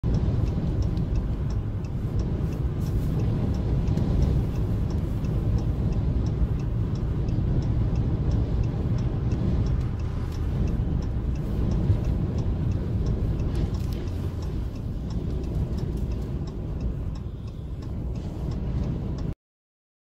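Steady low rumble of highway driving in strong wind, with wind and road noise as heard from a following vehicle, and a regular light ticking throughout. The sound cuts off abruptly just before the end.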